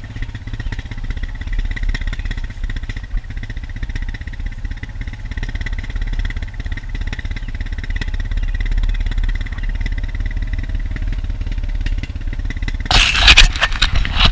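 A vehicle running with a steady low rumble. Loud crackling handling noise on the microphone comes in near the end.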